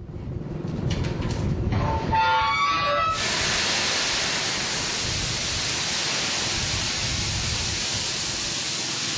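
Crushed stone pouring from a loadout chute into an open-top railcar, a steady rushing hiss from about three seconds in. Before that there is a rumble with a few brief squealing tones.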